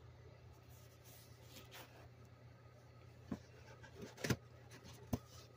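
Cardboard box being handled and turned over close to the microphone: faint rubbing with a few light knocks, the loudest about four seconds in.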